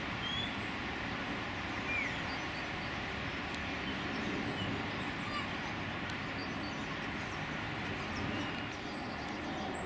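Steady outdoor background noise, an even rushing hum, with a few brief high bird chirps scattered through it.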